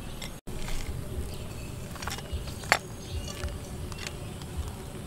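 Steady buzz of insects, with a few light sharp clicks of a metal spoon against a bowl as crushed roasted peanuts are added to soup. The loudest click comes about halfway through.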